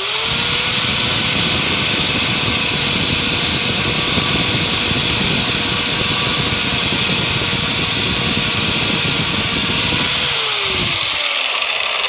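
Electric angle grinder grinding the burred back edge of a steel lawnmower blade: a steady motor whine under the hiss of the abrasive disc on steel. About ten seconds in it is switched off and the whine falls as the disc spins down.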